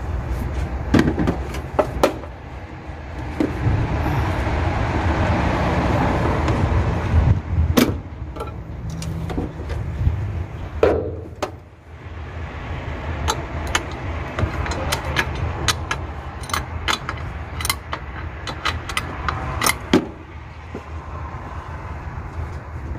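Sharp, irregular metal clicks and clinks of hand tools working the mounting nuts of a Nissan pickup's brake master cylinder loose from the brake booster. Underneath is a low rumble that swells and fades in the first third.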